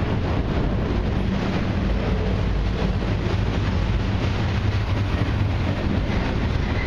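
Freight cars of a long mixed train (boxcars and autoracks) rolling steadily past at close range: a continuous low rumble of steel wheels on the rails.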